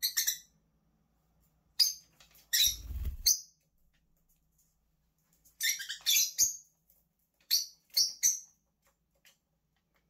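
Rosy-faced lovebirds giving short, shrill chirping calls in several quick clusters, answering wild birds outside the window. A brief low rustle sounds under the calls about three seconds in.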